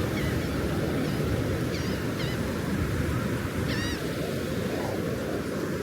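Steady low rumble of surf and wind at the shore, with a few short, wavering calls from gulls about two seconds in, again a moment later, and near the four-second mark.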